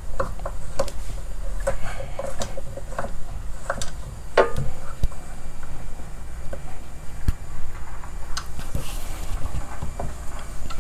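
Metal clicks, knocks and light scrapes as a Penn 130 big-game reel's bar clamps are tightened onto a line winder's reel mount, with a brief squeak about four seconds in.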